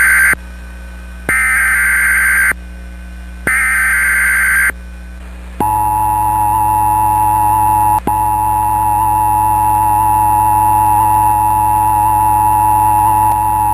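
Emergency Alert System tones: three short bursts of SAME header data, each about a second long, followed about five and a half seconds in by the steady two-tone attention signal, held without change.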